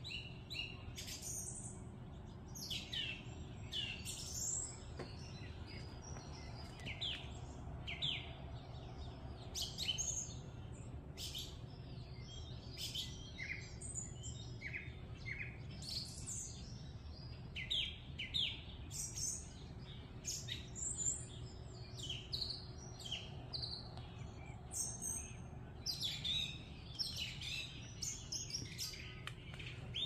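Several birds chirping and singing, many short calls and trills overlapping throughout, over a faint steady low background hum.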